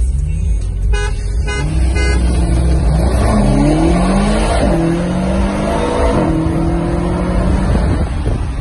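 BMW sedan's engine accelerating hard, heard from inside the cabin: its pitch climbs steadily and twice drops back at an upshift.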